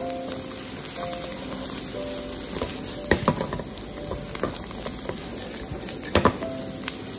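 Dried small fish, garlic and chopped peppers sizzling in hot oil in a wok as they are stir-fried, with sharp clacks of the spatula against the wok about three seconds in and again about six seconds in.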